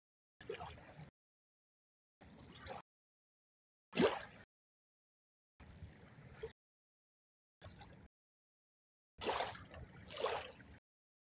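Small waves lapping and washing in over a sandy shore, heard in six short bursts that each cut off abruptly into silence; the sharpest splash comes about four seconds in.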